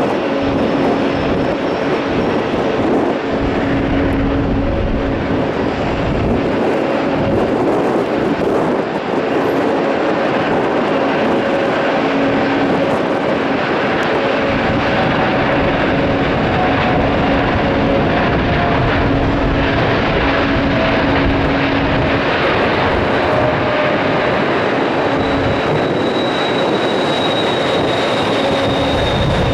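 Boeing 787-9 airliner's twin turbofan engines at take-off power: a loud, steady jet noise with a few faint, drifting tones running through it.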